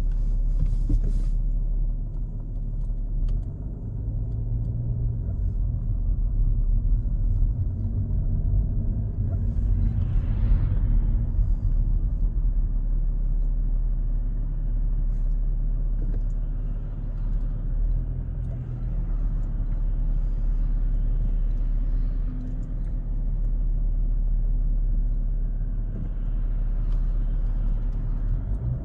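Cabin sound of an Audi A4 B6 with a 2.5 TDI V6 diesel while driving: a steady low engine drone and rumble from the tyres and road, with the pitch of the low notes shifting a little as the car moves.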